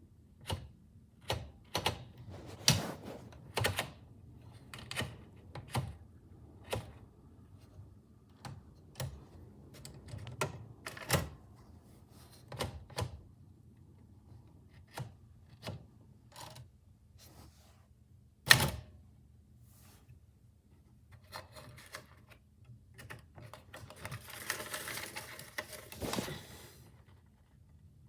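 Typewriter keys striking in an irregular typing rhythm. One strike about two-thirds of the way through is much louder than the rest, and near the end there is a longer, noisier mechanical stretch.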